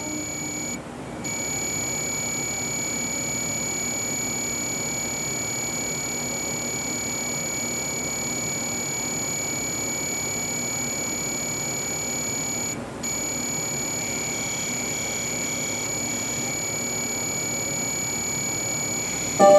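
A steady high-pitched electrical whine, like a buzzer tone, over a low even hiss, with no music playing. The whine cuts out briefly twice: about a second in and again about two-thirds of the way through.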